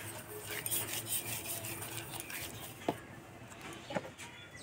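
Fingers rubbing ghee over a newspaper lining inside an aluminium bowl: a soft, scratchy, repeated rubbing that eases off after about three seconds, with a couple of light knocks near the end.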